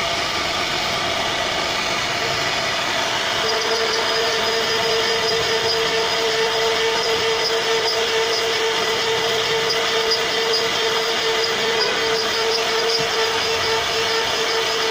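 CNC router spindle running steadily with a constant whine while its pointed carving bit cuts a relief pattern into solid wood, under a steady hiss of cutting. The whine grows stronger about three and a half seconds in.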